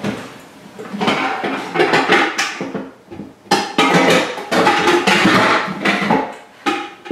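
Metal pots and pans clanking and ringing as they are rummaged through and pulled from a kitchen drawer.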